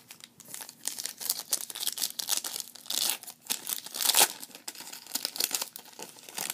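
Foil wrapper of a 2010 Bowman Platinum baseball card pack being torn open and crinkled by hand: a dense run of crackles and rips, loudest about four seconds in.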